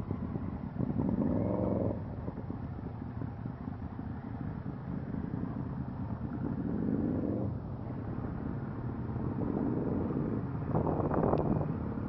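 Motorcycle engines running at low speed, a steady low rumble with the engine note rising and falling three times as the bikes pull away and ease off.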